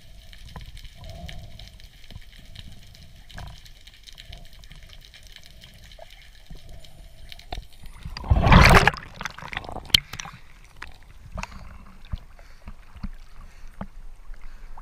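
Underwater sound heard through an action camera's housing: a muffled low rumble, then a loud rush of water about eight and a half seconds in, followed by small splashes and water lapping as the camera comes up at the surface.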